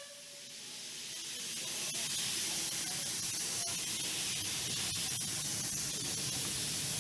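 Steady hiss of steam from a light-railway steam locomotive running with its train, building over the first two seconds and then holding, with faint scattered ticks.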